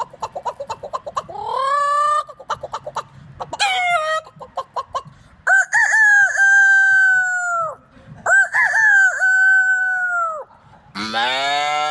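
A person's voice imitating a chicken: quick clucking with short rising and falling squawks, then two long rooster crows of about two seconds each. A lower, different animal call starts near the end.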